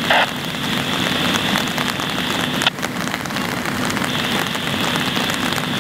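Steady drone of a running engine on the fireground, such as a fire apparatus, with a hiss over it and a single sharp click about two and a half seconds in.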